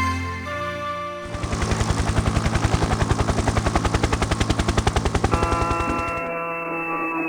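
A rapid, even rattle of about ten beats a second, lasting some five seconds, over music; after it the music goes on alone, its tones gliding downward near the end.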